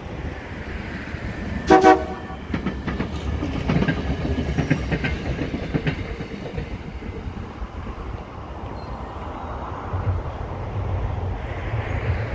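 Metlink Matangi electric multiple unit approaching: one short horn blast about two seconds in, then clicking of wheels on the track and a low rumble that grows as the train draws near.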